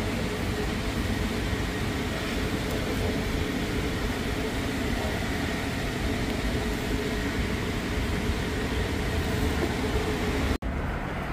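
Steady outdoor road-traffic noise, an even rumble and hiss with a faint engine hum, broken by a sudden brief dropout near the end.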